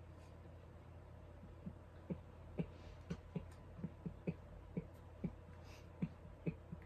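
A man chuckling quietly: a string of short, soft breathy laughs, about two a second, starting about a second and a half in, over a steady low room hum.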